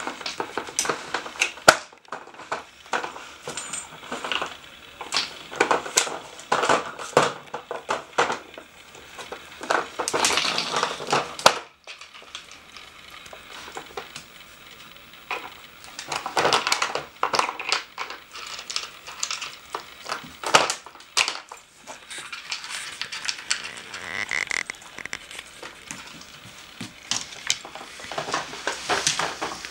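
Hard plastic pieces of a dog treat puzzle board clacking and knocking as a dog noses and paws at its pegs and drawers on a wooden floor: irregular clicks and clatters, with a quieter stretch about twelve seconds in.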